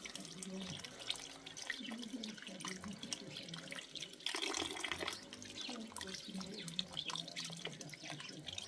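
Running water splashing, with many small drips and ticks.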